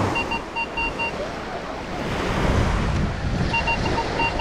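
Vanquish 540 metal detector giving short repeated beeps as its coil passes over a buried target: a run of about four beeps at the start and another near the end. The detectorist reads the signal as a penny. Surf and wind noise underneath.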